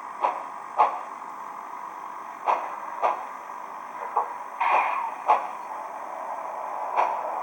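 Steam sound from the DCC sound decoder of an Intermountain Southern Pacific AC-12 cab forward model locomotive, played through its small onboard speaker: a steady hiss with sharp, short sounds at uneven intervals, one of them longer about halfway through.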